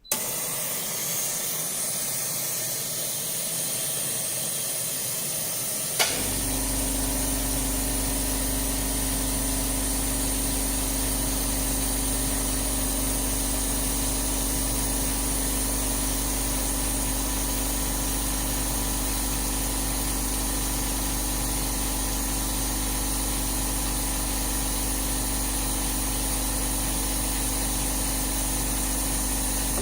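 Vacuum leak tester running: a steady air hiss starts abruptly. About six seconds in, a click is followed by a steady low hum that joins the hiss and holds.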